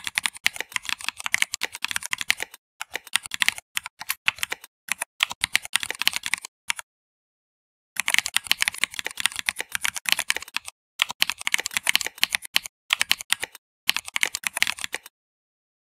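Fast typing on a computer keyboard: quick runs of keystroke clicks broken by short pauses, with a longer pause of about a second midway, stopping shortly before the end.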